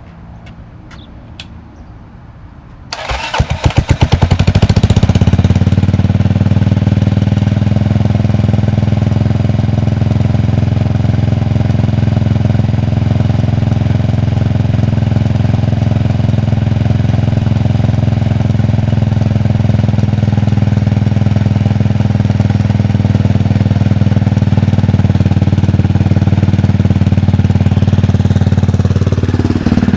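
Motorcycle engine cold-started: it cranks briefly about three seconds in, catches and runs steadily at idle, with a clicking noise from the primary-drive side.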